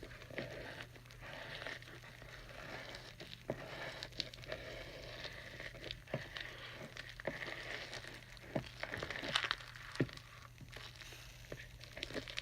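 Clear-glue slime with borax activator being kneaded and squeezed by hand, making irregular wet clicks and pops as it comes together.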